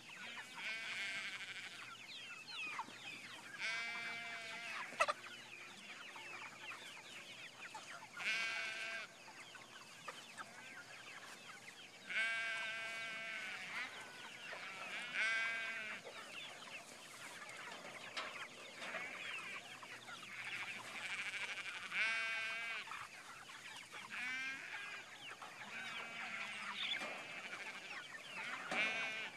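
A flock of jumbo broiler meat chickens calling and clucking, with drawn-out high calls every few seconds over a constant chatter of smaller chirps. A single sharp knock about five seconds in.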